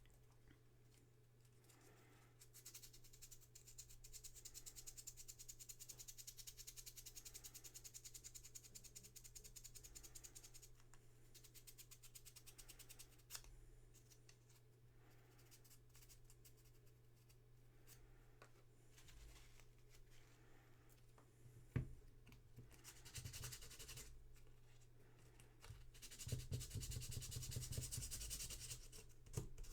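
Fast, even scrubbing strokes on small parts of a headlight switch being cleaned, in two spells: a long one starting a few seconds in and a shorter one near the end, with a sharp knock in between. A faint steady hum lies underneath.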